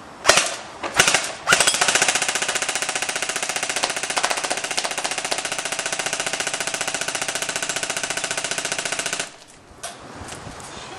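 Echo 1 XK CQB airsoft electric rifle firing: a few short bursts, then one long full-auto burst of about eight seconds, a rapid even rattle that cuts off suddenly.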